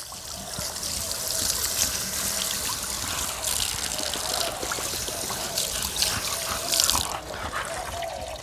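Short-muzzled bully-breed dog panting heavily with its tongue out, breath after breath.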